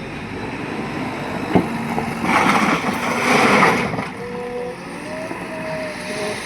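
JCB 3DX Plus backhoe loader's diesel engine running under load, with a sharp knock and then two louder surges of noise about two seconds in. A wavering whine follows in the last couple of seconds.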